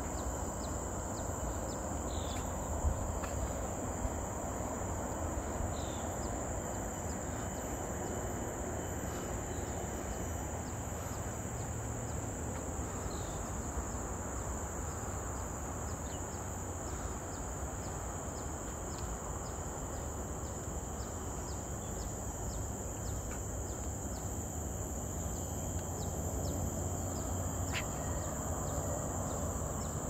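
Steady high-pitched insect drone, over a low rumble, with a few brief faint chirps.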